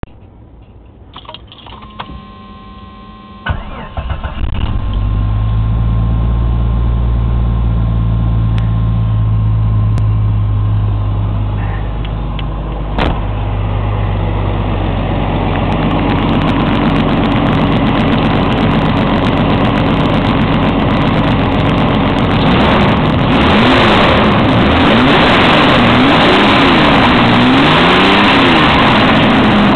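A 1992 Jeep Cherokee's 4.0-litre straight-six, with over a quarter-million miles on it, is cranked and catches about four seconds in. It holds a steady fast idle, then settles a little lower about twelve seconds in, running relatively quiet. Near the end it is revved several times by hand, the pitch rising and falling with each blip.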